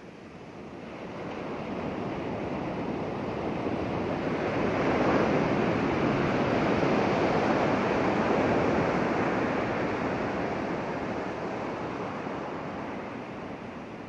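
Ocean surf breaking and washing up a sandy beach, a steady rushing that swells over the first few seconds, stays loudest through the middle, and slowly eases off.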